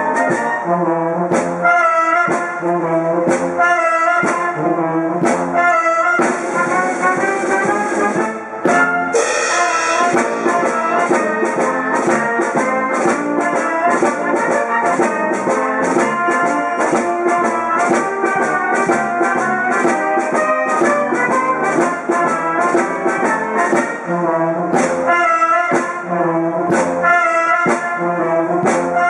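Brass music, trumpets and trombones playing a tune over a steady beat.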